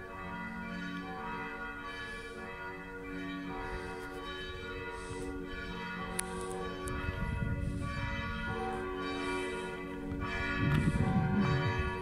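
Church bells ringing, struck about once a second, their tones hanging on and overlapping between strokes. A low rumble on the microphone comes in partway through and is loudest near the end.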